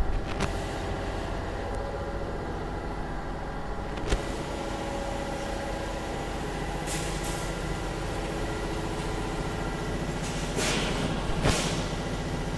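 Vertical bagging machine running: a steady mechanical hum with several steady tones, a couple of sharp clicks, and short hisses of released air about seven seconds in and twice more near the end.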